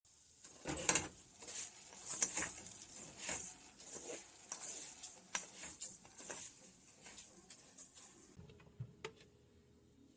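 Irregular rustling with light clicks and clatter, as of objects being handled. It stops about eight seconds in, leaving a faint steady hum and a couple of soft knocks.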